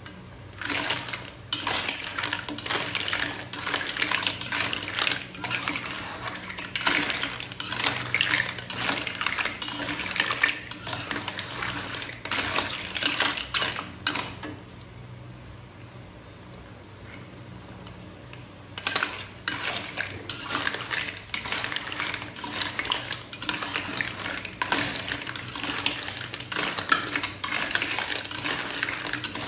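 A metal spoon scraping and clattering against a wok and clam shells as clams in thick chili sauce are stirred. The stirring comes in two spells, with a pause of about four seconds in the middle.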